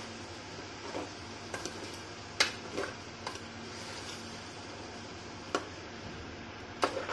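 Metal spatula scraping and knocking against the side of an aluminium pressure cooker as rice and vegetables are stirred and sautéed, with irregular clicks and scrapes every second or so over a faint steady hiss. The sharpest knocks come about two and a half seconds in and twice near the end.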